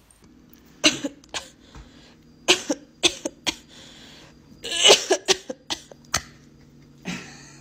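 A dog giving a string of short, breathy huffs, about a dozen at irregular spacing, the loudest about five seconds in, over a steady low hum.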